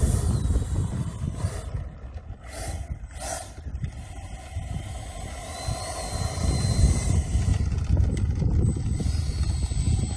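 80mm electric ducted fan of a Freewing Avanti S model jet whining faintly at low taxi throttle as the jet rolls on its wheels, over a steady low rumble. The thin fan whine shifts slightly in pitch about six seconds in.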